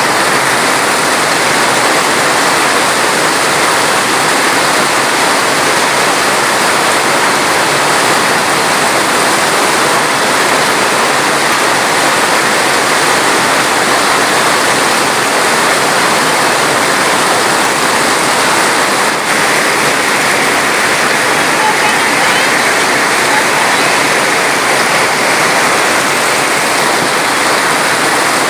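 Steady rushing water: an even, dense hiss that does not change.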